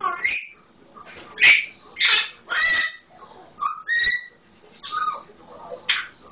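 Male Solomon Island eclectus parrot giving a string of short squawks and whistled calls, about one a second, in imitation of a red-lored amazon's calls.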